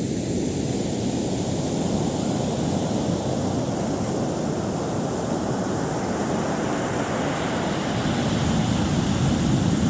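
Ocean surf washing in a steady rush, with wind on the microphone, swelling a little near the end.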